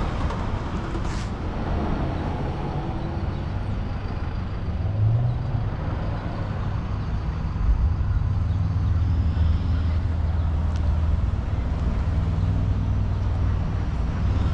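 Street traffic: a motor vehicle's engine running with a steady low rumble, growing stronger about halfway through.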